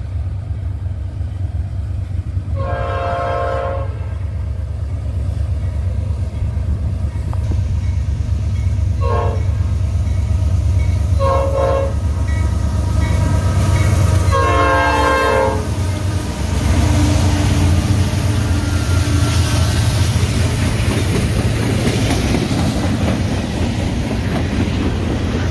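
Norfolk Southern diesel freight locomotive's air horn sounding four blasts: a long one, two short ones, then a long one, over the steady rumble of the approaching train. Then the locomotive and its freight cars pass close by with a louder rumble and wheel clatter.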